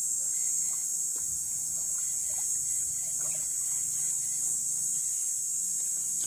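Faint water sloshing and trickling as someone wades and probes among submerged branches in a shallow river, over a steady high-pitched insect drone from the surrounding forest.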